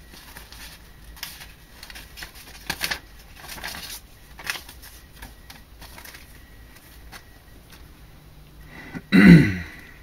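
Paper instruction leaflets and plastic packaging being handled, with short rustles and clicks over the first few seconds. A brief vocal sound, falling in pitch, about nine seconds in.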